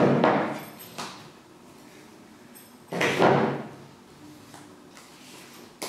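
Tabletop handling clatter, twice: a metal spoon knocking coffee powder into a glass bowl, then a plastic tub's lid being pulled open about three seconds later, each sharp at first and dying away quickly.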